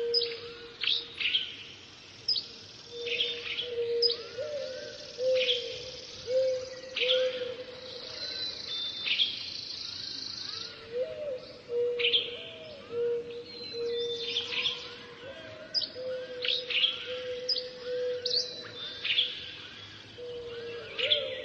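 Dawn chorus of many birds, dense quick high chirps and whistled notes overlapping throughout, over a lower sustained, repeated call that comes and goes.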